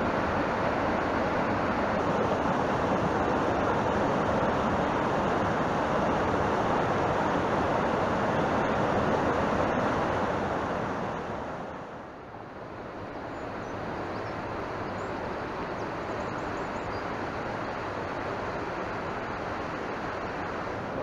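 Steady rushing of a fast whitewater mountain stream over boulders. About halfway through it dips briefly, then goes on quieter and more distant.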